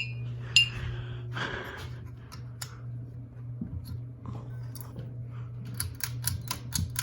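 Ceiling fan motors humming steadily, with scattered light clicks and a quick run of clicks near the end.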